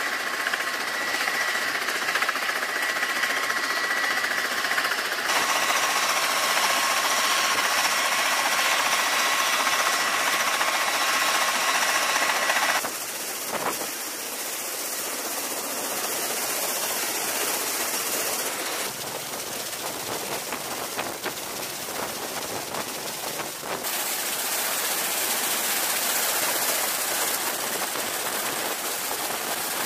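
CMV-22B Osprey's twin turboshaft engines and proprotors running, a loud steady rush of rotor and engine noise. A high whine lasts for about the first dozen seconds, and the sound changes abruptly several times.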